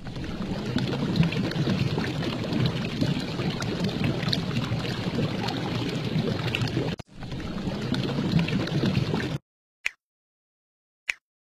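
Intro sound effects: a steady, liquid-like noise for about nine seconds, cut off briefly near seven seconds. Then two single clicks about a second apart, the mouse-click sounds of a subscribe-button animation.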